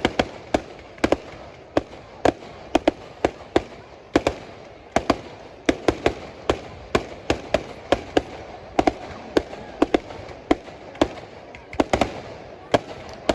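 Professional display fireworks going off in a rapid, irregular run of sharp bangs, about two a second, over a steady hiss between the reports.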